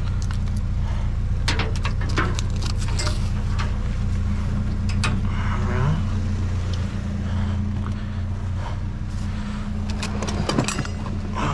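A vehicle engine idling steadily, with scattered clicks, knocks and clinks of metal items being handled.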